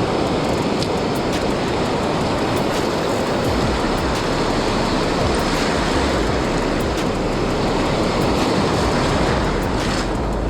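Steady rush of surf on a beach, with wind rumbling on the microphone in gusts.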